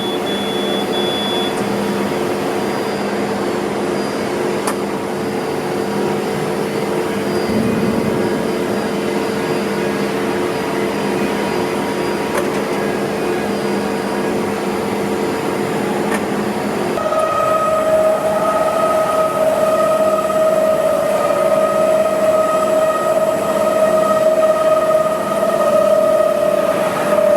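Kaltenbach structural-steel machine running with a steady multi-tone motor hum. About two-thirds of the way through, a louder, higher-pitched steady whine starts up and holds.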